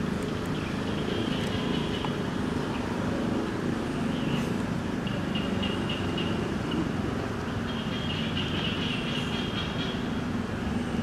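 Steady low outdoor rumble of background noise, with a high, fast-pulsing buzz that comes and goes several times.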